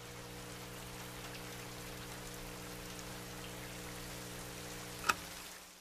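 Rain sound effect: a steady hiss of falling rain over a low, steady hum, with one sharp click about five seconds in. The sound starts fading out near the end.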